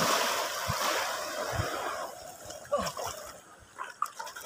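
A rush of splashing water, loudest at the start and fading away over about two and a half seconds, followed by a few faint knocks.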